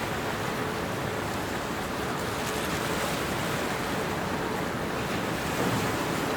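Harbour ambience: a steady wash of water and distant port noise, with a faint steady hum that fades out around the middle.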